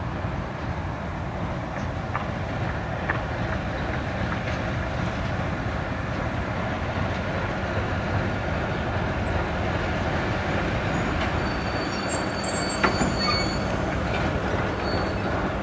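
Passenger train hauled by a T 478.1 diesel locomotive running past, a steady rumble of wheels on rail with scattered clicks over the joints. A thin, high wheel squeal comes in about three-quarters of the way through.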